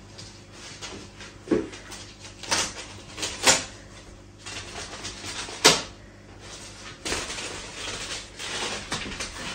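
Plastic wrapping on a rolled-up rug being cut with scissors and pulled off: rustling and crinkling, with several sharp crackles.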